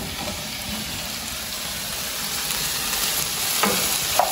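Sliced bell peppers and onion sizzling as they fry in oil in a non-stick pan, stirred with a plastic spoon. The sizzle grows a little louder, with a couple of brief knocks from the stirring near the end.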